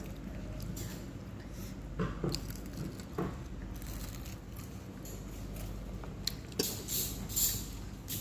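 Eating and handling noises at a meal: a few scattered short bites, squishes and small clicks over a steady low hum.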